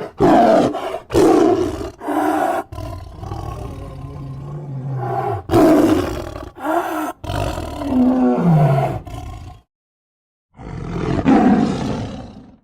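Spliced creature roars and growls made as the voice of a giant cat-like monster: several short roars, a longer low growl, and a call that drops in pitch, then after a second's silence a final roar that fades away.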